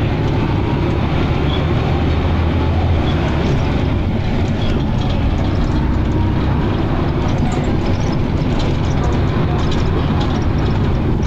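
Dennis Arrow double-decker bus running, a steady low engine rumble with light rattles over it.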